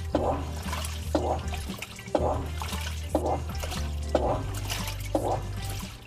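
Background music with a steady beat of about one strike a second over a held bass line.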